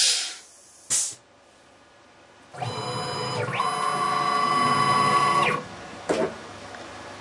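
Small CNC lathe's motors whining steadily for about three seconds while the machine moves. The whine changes pitch about a second after it starts and cuts off abruptly. It is preceded by two short bursts of noise and followed by a couple of clicks.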